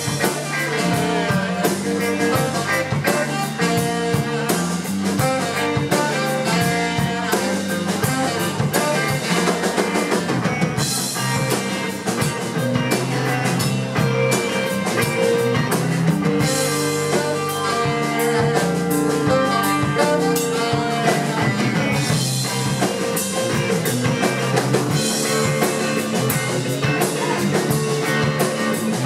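Live rock band playing an instrumental passage, with drum kit and electric guitar.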